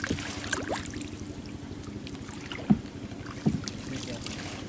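Water splashing and sloshing as a man wades chest-deep and pulls water hyacinth from a bamboo fence, over a steady low chugging engine hum. Two brief louder sounds come a little past the middle.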